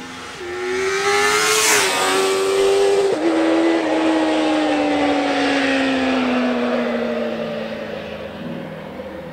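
A motor vehicle accelerating hard past, its engine pitch climbing and dropping twice as it changes up. It then fades away with a slowly falling pitch.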